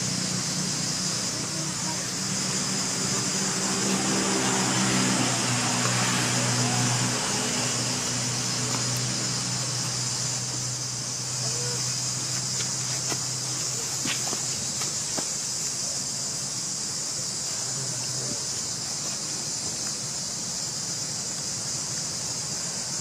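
Steady high-pitched chorus of insects, with a low engine-like hum that swells about five seconds in and fades out after about nine seconds.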